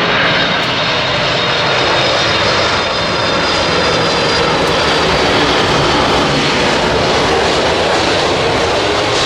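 Large airliner flying low overhead as it comes in to land: a loud, steady rush of engine noise with a faint high whine.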